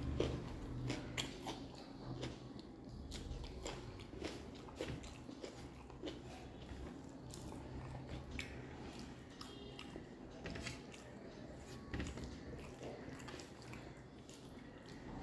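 Close-miked chewing of rice and yellow dal eaten by hand, with many small, irregular wet clicks and smacks of the mouth and a few soft squelches of fingers in the rice.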